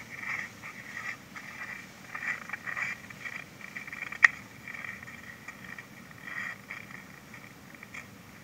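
Underwater sound heard through a GoPro's waterproof housing: irregular crackling and ticking over a faint low rumble, with one sharp click about four seconds in.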